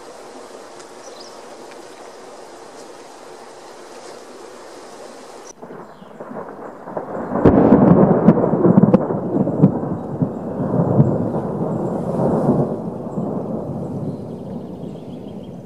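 Rolling thunder: a rumble builds about seven seconds in, is loudest for a couple of seconds, then rolls on in waves and slowly fades. Before it, a steady hiss that cuts off suddenly about five seconds in.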